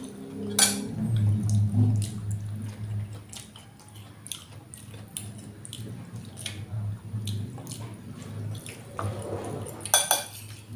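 Close-up eating sounds of sinigang na bangus: wet chewing and slurping of the sour broth, with scattered sharp clicks of spoon and bowl. A louder wet burst comes near the end, over a low steady hum.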